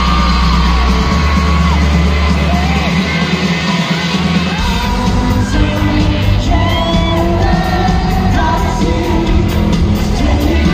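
Live rock band with a singer playing through a large arena PA, heard from within the crowd, with fans screaming and whooping over the music. A driving beat comes in about halfway through.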